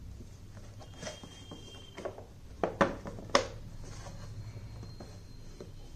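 Cardboard toy box being handled and turned over in the hands, giving a few sharp knocks and rustles, the loudest two a little after halfway.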